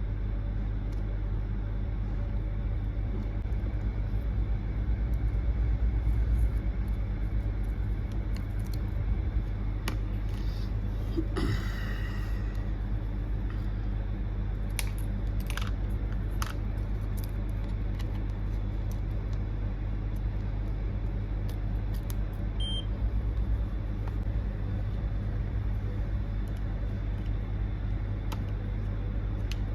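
Steady low hum throughout, with scattered light clicks and taps in the middle stretch.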